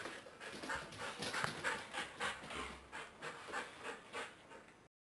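Siberian husky panting close by, quick breathy pants about three a second, cutting off suddenly near the end.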